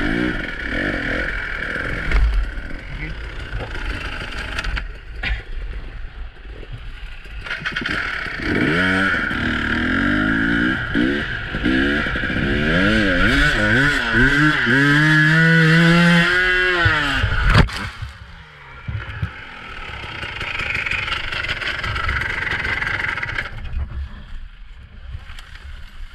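Two-stroke dirt bike engine revving hard, its pitch swinging up and down repeatedly under load. The revving cuts off suddenly with a knock about two-thirds of the way through, and a quieter engine note then carries on.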